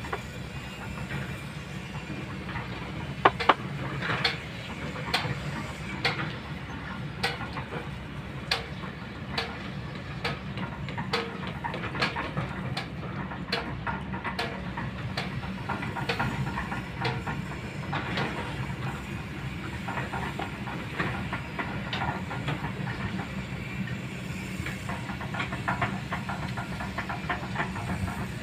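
Kobelco hydraulic excavator's diesel engine running steadily as a low drone, with frequent sharp metallic clinks and knocks over it, the loudest a few seconds in.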